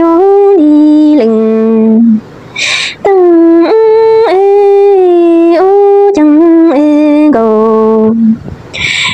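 A woman's unaccompanied voice singing a Hmong lament in long held notes that step up and down in pitch, broken twice by short breathy pauses.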